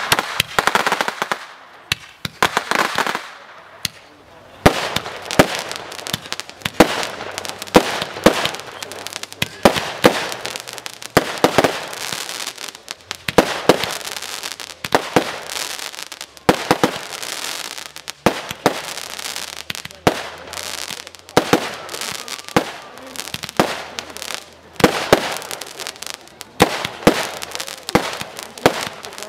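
Crescendo 1.3G firework barrage firing. It opens with a few seconds of hissing launch, then after a brief lull near four seconds comes a steady run of sharp bangs, about one a second, each trailed by dense crackling stars.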